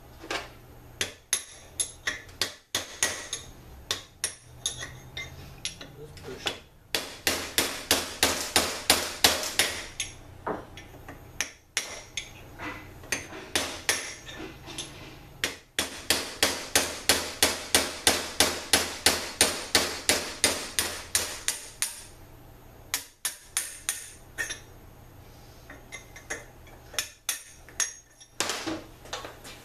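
Steel hammer striking a punch set in a TH400 transmission's pump assembly, driving a bushing. The metallic blows come in long rapid runs of about four or five a second, with slower single strikes before and after.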